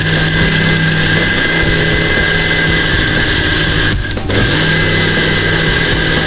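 Electric countertop blender motor running steadily while it blends a banana, milk and cocoa smoothie. It dips briefly about four seconds in, then runs on.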